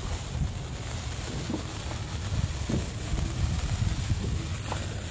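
Wind buffeting the microphone outdoors, a steady low rumble, with a few faint pops scattered through it.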